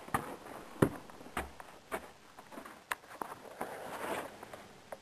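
Footsteps on snow-covered wooden steps: a handful of uneven steps, sharp clicks with soft scuffs between.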